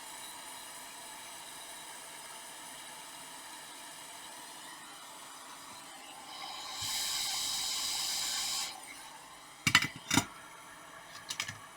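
A faint steady hiss, then a louder airy hiss lasting about two seconds, followed by two sharp clicks and a few lighter ticks, made during hot-glue work on a laptop hinge.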